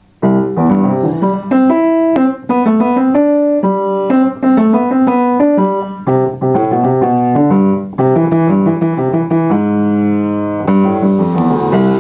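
Piano music: a quick succession of notes and chords that starts abruptly after silence.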